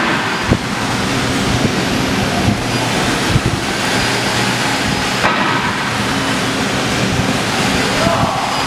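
CNC plasma cutting torch cutting steel: a loud, steady hiss with a low hum underneath and a few scattered clicks.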